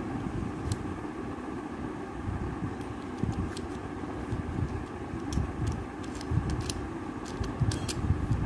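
Plastic tiles of a 15-tile sliding puzzle clicking as fingers push them around, in irregular sharp clicks over a steady low rumble.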